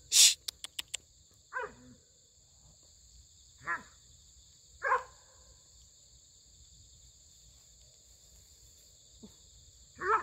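A collie giving short, high-pitched yelps, three of them in the first five seconds, over a steady high insect drone. A sharp burst followed by a few quick clicks right at the start is the loudest sound.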